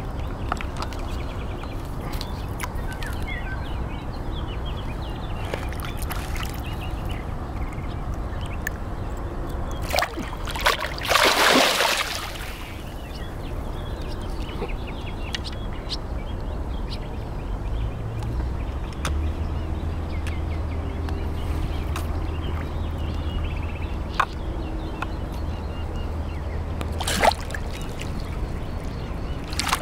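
Large pike thrashing and splashing at the surface of shallow water while being played in, with one big splash about a third of the way in and a shorter, sharp splash near the end, over a steady low rumble.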